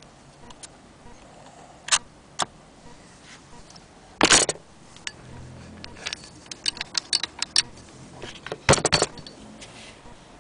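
Metal parts of an antique hand-crank sewing machine clicking and clattering as it is handled and cranked: scattered sharp clicks, a run of quick clicks, and two louder clattering bursts about four and nine seconds in.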